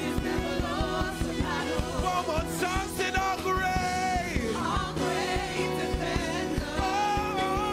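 Gospel worship song: several singers carry a wavering melody over bass guitar and a steady drum beat.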